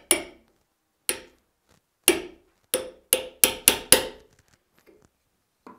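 A hammer tapping a steel punch into the end grain of a square hickory billet, marking its centre for mounting on the lathe. About eight sharp taps with a short metallic ring, about a second apart at first, then quickening to about three a second near the end.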